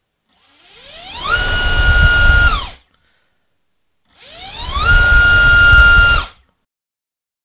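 Hyperlite V3 2206 2450kv brushless motor on a thrust stand spinning a DAL TJ5045 prop, run up to full throttle twice: each run is a rising whine that climbs to a steady high pitch, holds about a second and a half, then cuts off sharply.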